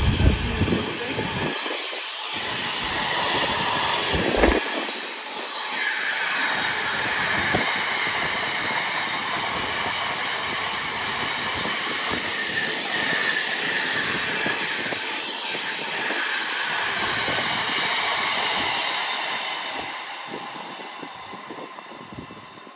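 A freight train hauled by a Class 66 diesel locomotive passes through, its wagons rumbling and clattering over the rails. There are a few brief squeals from the wheels, and the sound fades away near the end.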